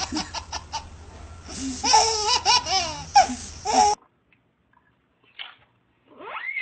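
A baby laughing in repeated bursts of giggles, which cut off abruptly about four seconds in. Near the end comes one short sound that slides up in pitch and back down.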